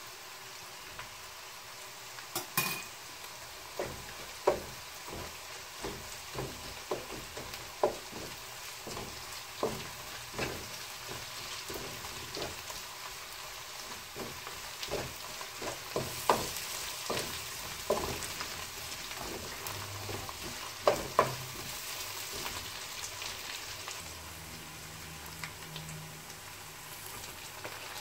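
Onion, garlic and chilli sizzling in oil in a nonstick wok while a wooden spatula stirs them, with frequent sharp knocks of the utensils against the pan.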